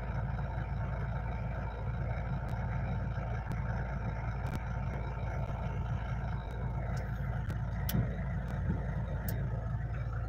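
Toyota vehicle's engine idling steadily, heard from inside the cab, with a few light scattered ticks of rain on the windshield.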